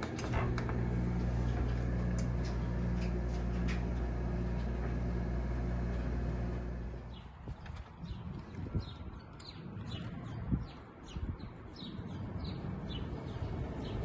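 Window air conditioner switched on and running with a steady low hum for about seven seconds. The sound then cuts abruptly to the outside of the unit, where birds chirp repeatedly over a quieter background.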